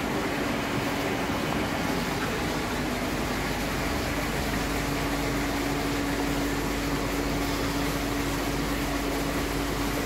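Steady mechanical hum: one constant low tone over an even hiss, unchanging throughout.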